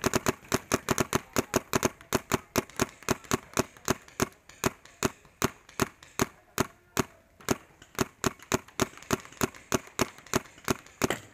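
Paintball marker firing a steady stream of sharp shots, about five a second.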